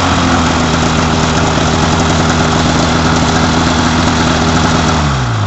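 Arctic Cat ProClimb M8 800 two-stroke snowmobile engine running steadily through a prototype Speedtech muffler on a stand, then shut off near the end, its pitch falling as it winds down.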